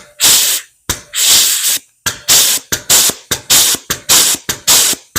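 Astro Pneumatic 605ST air flange-and-punch tool cycling stroke after stroke, each stroke a sudden burst of hissing exhaust air, about two to three a second and quickening toward the end.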